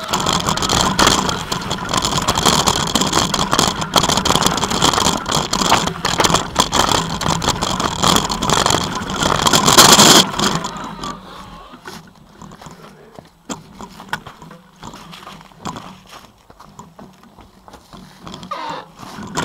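Mountain bike ridden fast over a rough forest trail: a dense clatter of rattling and tyre noise. It falls away about ten seconds in as the bike slows and stops, leaving faint scattered clicks and rustling.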